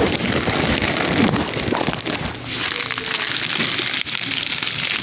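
Close-up crinkling and rustling of plastic bags and packaging as purchases are handled and repacked, with many small irregular crackles.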